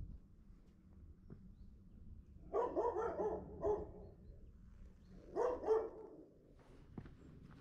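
An animal calling in two short runs of quick repeated calls, the first about two and a half seconds in and the second about five seconds in.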